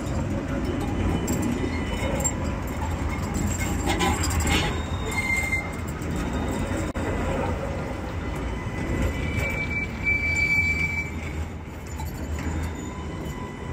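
A modern low-floor electric tram rolling past close by, its wheels on the rails making a steady low rumble. A thin, high wheel squeal rises briefly about five seconds in and again for a couple of seconds around ten seconds in.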